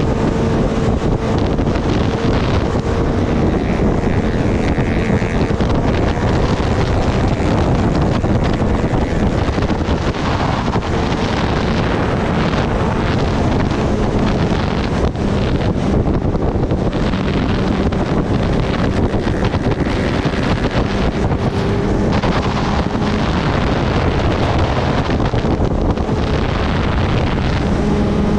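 Heavy wind rush on the microphone of a moving sport motorcycle at steady road speed. The engine hums steadily underneath.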